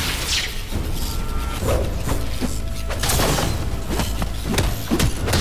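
Cartoon action music with fight sound effects: whooshes of swinging blows and a string of thuds and impacts.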